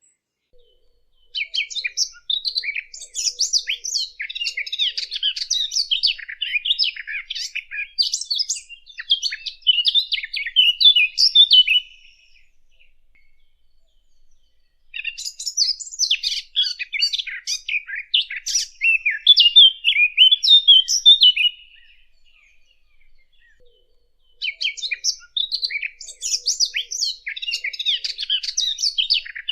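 A Sylvia warbler, the 'fig bird', singing long, fast, rambling warbled phrases, the first about ten seconds long and the second about six, with pauses of about three seconds between them.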